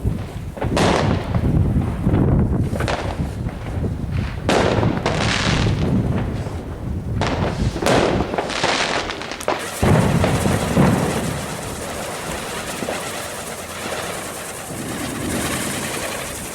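Fireworks going off: a run of sharp bangs and crackling bursts over a low rumble, thinning out after about ten seconds into a quieter hiss.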